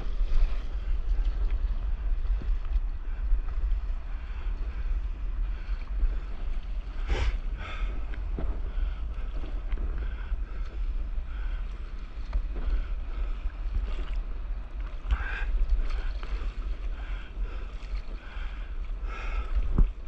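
Wind rumbling on the camera microphone over open sea, with water sloshing and splashing around a stand-up paddleboard; a few sharper splashes stand out about seven, fifteen and nineteen seconds in.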